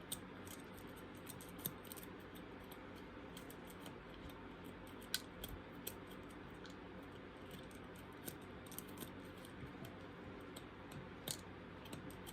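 Faint scraping with scattered light clicks as seeds are worked loose from inside a superhot pepper with a spork's tines, the seeds clicking as they come free.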